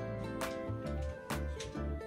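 Background music with a steady beat: held notes over a bass line, with regular percussive strokes.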